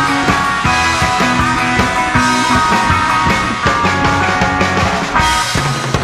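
Background music: a rock-style track with a drum kit keeping a steady beat under held instrumental notes.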